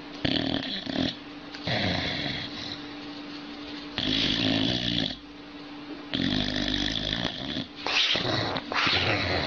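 Boxer dog snoring and grumbling in its sleep, in about six short bouts of roughly a second each with pauses between; the last ones near the end rise and fall in pitch like a whine.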